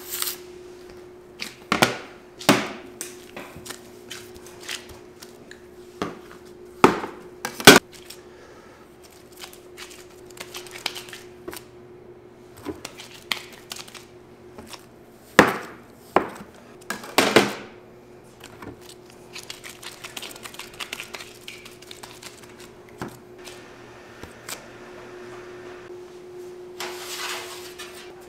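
Bakery kitchen work: irregular knocks and clatters of utensils, pans and trays on hard surfaces, the loudest near 7 to 8 seconds in and again around 15 to 17 seconds in, over a steady low machine hum.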